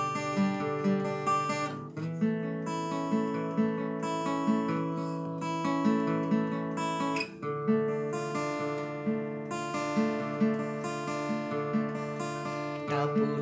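Instrumental music: an acoustic guitar plays a steady, evenly repeating pattern of notes, with no singing.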